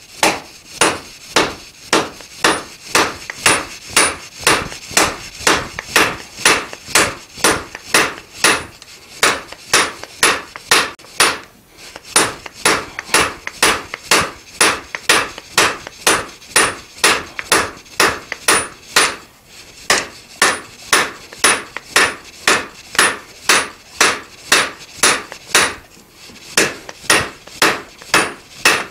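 Blacksmith's hand hammer striking a red-hot mild steel bar on an anvil with half-face blows at the anvil's edge, offsetting and drawing out the bar. Steady blows at about two a second, each with a short metallic ring, broken by a few brief pauses.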